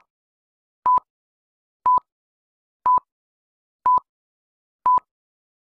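Film-leader countdown beeps: a short, single-pitched beep once a second, each starting and stopping with a slight click, with silence between.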